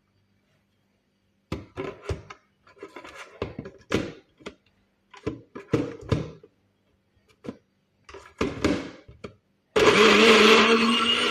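A run of short, irregular bursts of sound, then about ten seconds in an electric blender switches on and runs steadily with a held whine, blending carrot and ginger pieces with water into juice.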